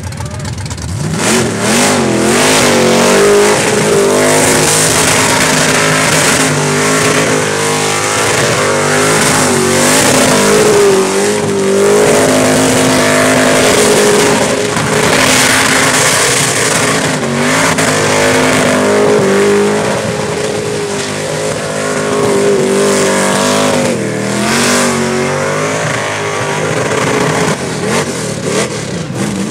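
Supercharged, alcohol-injected engine of a Holden Gemini held at high revs through a burnout, the revs wavering up and down continually, over the loud noise of the spinning rear tyres.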